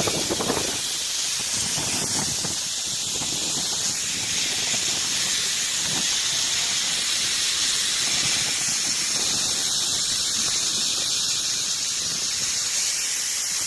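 Steady high-pitched hiss that runs unchanged throughout.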